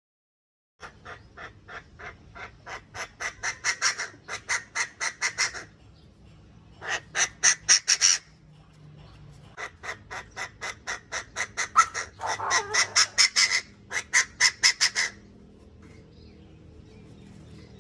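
Chinese francolin (đa đa) calling: three bouts of rapid, harsh repeated notes at about four a second, the first bout growing louder as it goes, stopping a couple of seconds before the end. A faint low hum sits underneath.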